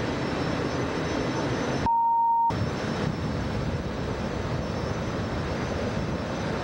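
Steady engine-like rumble with wind hiss. About two seconds in it cuts out completely for about half a second, replaced by one steady electronic beep, and then resumes.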